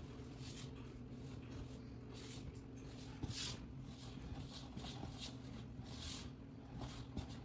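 Spatula stirring stiff yeast dough in a mixing bowl: repeated soft scraping strokes, roughly two a second and uneven, over a low steady hum.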